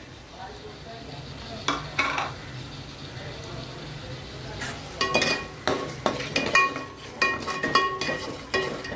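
Perforated steel skimmer stirring and scraping yogurt into masala in an aluminium pot. There are a couple of sharp knocks about two seconds in, then from about five seconds in a busy run of scrapes and knocks against the pot, which rings briefly with each one.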